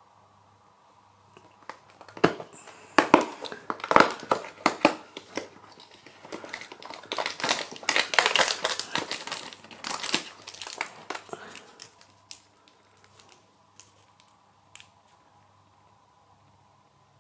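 Cardboard advent calendar door torn open along its perforation, a run of sharp tearing cracks starting about two seconds in, followed by a longer stretch of crinkling as the plastic-wrapped MAOAM Stripes sweet is pulled out of its compartment. A few faint ticks of handling follow.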